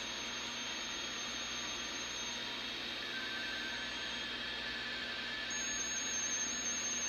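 Audio from a National 173 shortwave receiver tuned to an RTTY signal on 20 meters: a steady bed of band static and hiss, with the faint tones of the RTTY data signal coming through about three seconds in.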